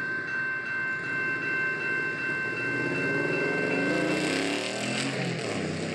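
Freight cars rolling slowly into a rail tunnel, with a steady high wheel squeal that stops about four and a half seconds in. From about two and a half seconds, an engine nearby revs up, rising in pitch.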